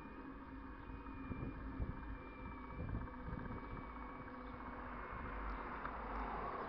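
Riding noise of an e-bike: wind rumbling on the microphone over the hum of rolling along pavement, with a faint steady high whine, getting a little louder near the end.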